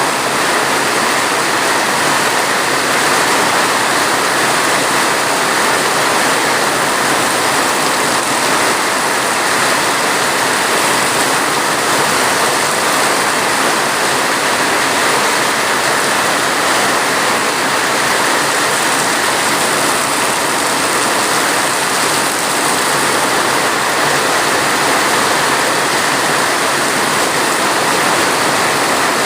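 Steady, heavy rain: a dense, even rushing hiss with no breaks or single drops standing out.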